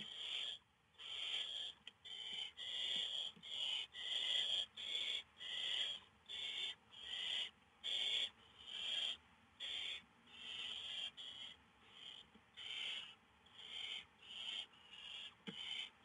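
Barn owl owlets giving their rasping, hissing begging calls (the 'snoring' call of hungry nestlings), one after another at about one call a second.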